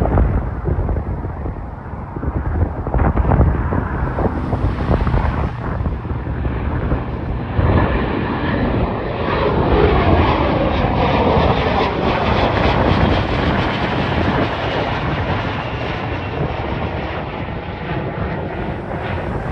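Airplane taking off and passing by: its engine noise swells about eight seconds in, sweeps in pitch as it goes past, then slowly fades. Wind buffets the microphone at first.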